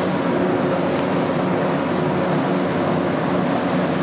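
Twin Cox 300 hp diesel outboards running steadily at cruising speed, about 28 knots, heard from on board over the rush of wind and water.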